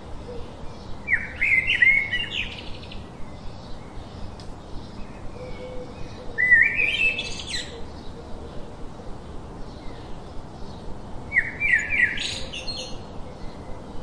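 Songbird calls: three short bursts of quick rising chirps, about five seconds apart, over a faint rapid ticking of small chirps.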